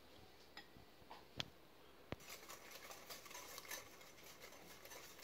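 Faint, quick ticking of a wire whisk beating egg and sugar in a glass bowl, starting a little over two seconds in, after two sharp clicks.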